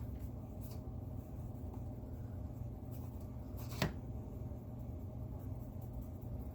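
Quiet scratchy handling sounds of makeup being worked with a brush, with one short sharp click about four seconds in, over a steady low hum.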